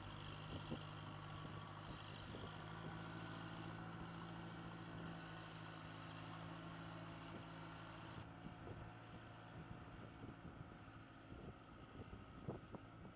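Aircraft tow tractor's engine running steadily with a low hum. The sound changes and eases about eight seconds in, and a few light knocks come near the end.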